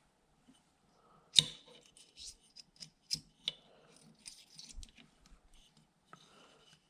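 Small metal AR-15 trigger parts of a Hyperfire trigger being handled and fitted into the lower receiver: one sharp click about a second and a half in, the loudest, then a scatter of lighter clicks and clinks.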